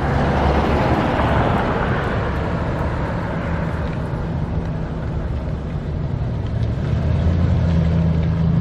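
Road traffic: a vehicle going by in the first couple of seconds, over a steady low engine hum that grows again near the end.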